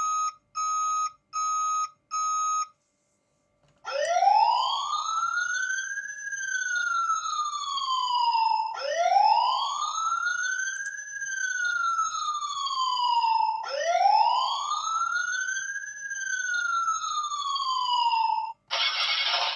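Electronic siren of a toy fire truck through its small speaker. It gives four short, evenly spaced beeps, falls silent for about a second, then wails three times, each wail rising slowly and falling again. Near the end it switches to a different buzzing tone.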